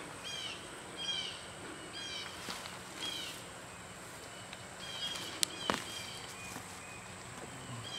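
Birds chirping outdoors: short falling chirps repeated every half second or so, with two sharp clicks about five and a half seconds in.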